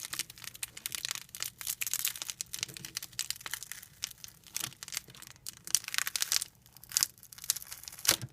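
Plastic glitter container handled and shaken while blue glitter is poured out: dense, irregular crinkling and clicking.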